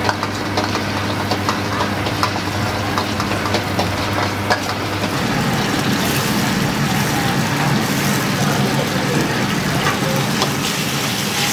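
Chicken stir-frying in a wok over a high gas flame: a metal spatula clicks and scrapes against the wok again and again over the steady rush of the burner and the sizzle. A low steady hum drops away about five seconds in, and from about six seconds the hiss grows brighter as flames flare up around the wok.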